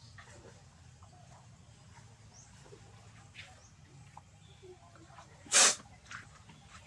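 Macaques' faint high squeaks scattered through the quiet, and one short, loud, noisy burst about five and a half seconds in.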